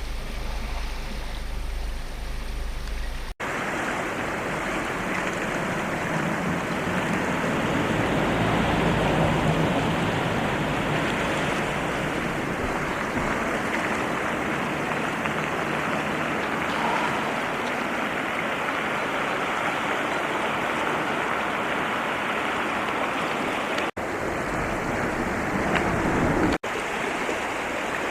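Flooding river water rushing steadily, with brief breaks at about three seconds, about 24 seconds and about 26 seconds in.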